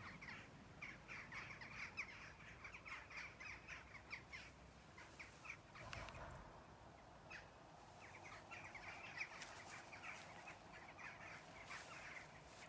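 A flock of birds calling faintly: many short, rapid calls in two spells, with a lull about six seconds in.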